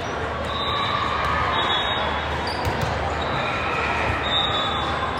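Game noise in a large sports hall: a steady din of echoing background noise with a few sharp knocks from play and faint voices.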